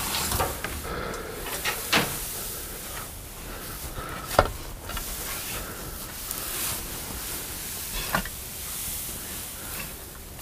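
Rustling of hay being handled, with a few scattered knocks, the loudest about four seconds in.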